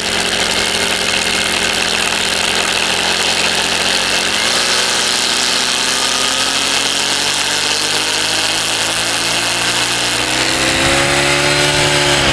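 Brush cutter engine running at a fixed throttle while its nylon trimmer line whips against a rock, a steady engine note under a high hiss of line striking stone. Over the last few seconds the engine speeds up and its pitch rises as the line wears away and breaks off, leaving less load on the engine.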